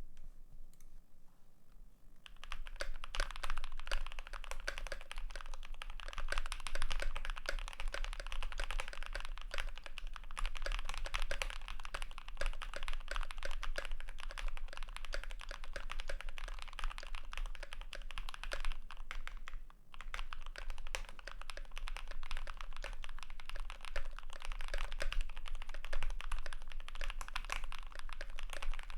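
Typing on a GMMK Pro mechanical keyboard with lubed KTT Strawberry linear switches, an aluminium plate and GMK doubleshot ABS keycaps: a dense, uneven stream of keystrokes that starts about two seconds in, with a brief pause about twenty seconds in.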